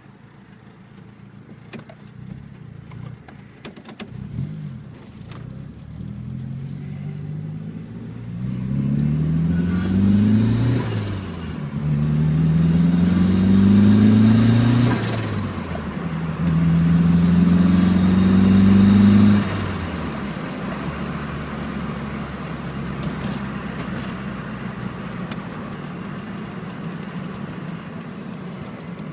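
Nissan Pulsar ET's turbocharged four-cylinder engine, fitted with a T28 turbo, revved three times from idle, each rev climbing in pitch and then cut off sharply, with turbo flutter on the lift-off. It then drops back to a steady idle.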